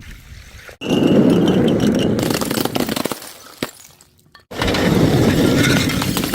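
Glass breaking twice: a sudden crash about a second in, followed by dense crunching and clinking of shards that fades over about three seconds, then a second crash and crunch starting abruptly about four and a half seconds in.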